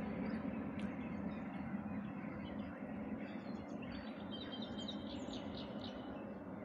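Low, steady drone of a distant helicopter, slowly fading. In the second half a bird gives a quick run of short, high chirps.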